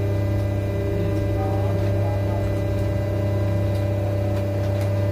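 Steady machine hum: a deep drone with several steady tones above it, unchanging throughout, with a few faint ticks.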